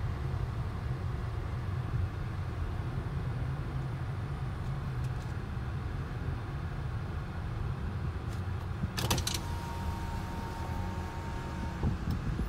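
Steady low rumble of a car's engine and tyres, heard from inside the cabin as the car rolls slowly. About nine seconds in come a few sharp clicks, then a thin steady tone that lasts a couple of seconds.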